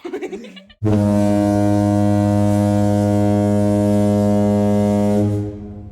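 A loud, steady low horn-like tone at one unchanging pitch. It starts abruptly about a second in, holds for about four and a half seconds, then fades out.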